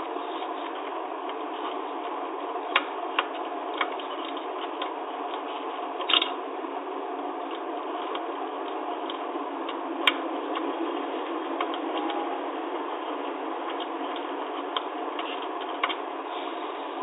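Occasional sharp clicks and taps, irregular and a few seconds apart, over a steady hiss.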